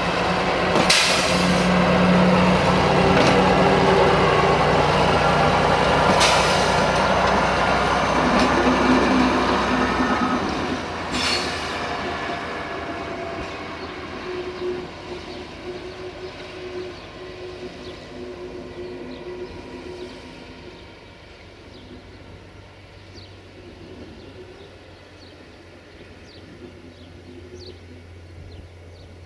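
Marub UAM 215 track maintenance vehicle running on the rails and moving away, its engine note loud at first, then fading steadily over the second half. Three sharp clicks come about 1, 6 and 11 seconds in.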